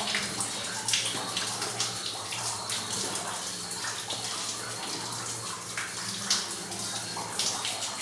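Water splashing and sloshing as people wade along a flooded cave path in wellingtons, irregular splashes over a steady running-water hiss.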